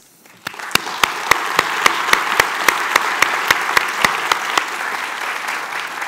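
Audience applauding, building up within the first second and dying down near the end. One set of claps stands out above the rest in a steady beat of about four a second for the first four seconds or so.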